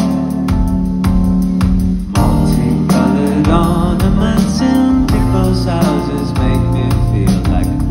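Live band music: keyboard and electric guitar over a steady beat, with a man singing from about two seconds in.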